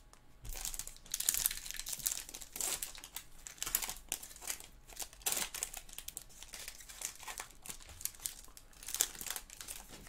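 Foil wrapper of a Topps Chrome baseball card pack crinkling and tearing as it is ripped open by hand, in many irregular bursts.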